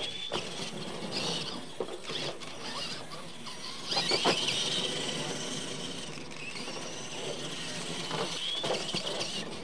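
Electric radio-controlled monster trucks whining as they race. The high-pitched motor and gear whine rises and falls with the throttle and is loudest about four seconds in, with a few knocks as the trucks land or hit obstacles.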